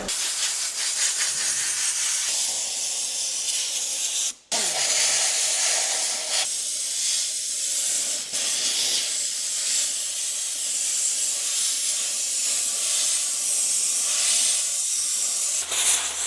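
A water spray jet hissing steadily as it rinses dirt out of a Tesla's clogged air-conditioning condenser fins, stopping for a moment about four seconds in and then starting again.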